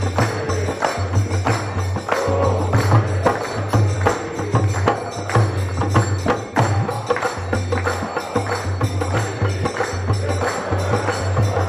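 Temple aarti music: fast, continuous jangling of metal percussion and bells over a pulsing drumbeat.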